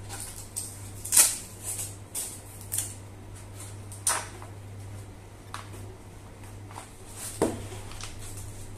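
Cardboard tea carton handled while its plastic screw cap is twisted: irregular clicks, scrapes and rustles, the loudest about a second in, over a steady low hum.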